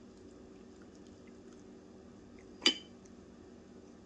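Tea pouring in a stream from a porcelain teapot into a glass cup, with one sharp, ringing clink of china or glass about two and a half seconds in.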